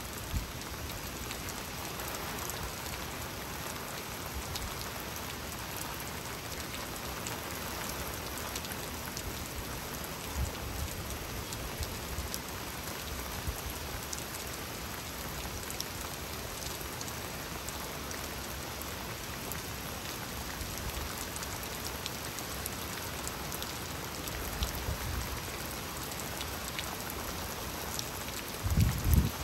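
Steady rainfall, with individual drops ticking close by. A brief low thump about a second before the end is the loudest moment.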